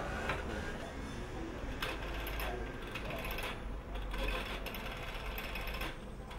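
Rotary-dial telephone being dialled: the finger wheel is turned and spins back with a rapid mechanical clicking, several digits in a row.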